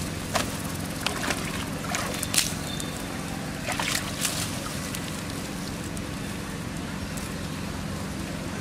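Water splashing and sloshing in a plastic tub as macaques plunge in and climb out, with several sharp splashes in the first half and dripping and lapping after. A steady low hum runs underneath.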